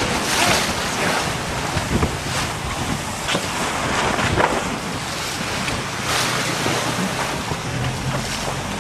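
Wind buffeting the microphone over the rush of choppy water against a moving boat's hull, with several sharper splashes as it pounds through the waves.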